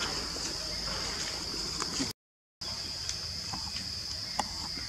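Steady high-pitched drone of insects with a few faint clicks. It cuts out completely for about half a second near the middle, then carries on unchanged.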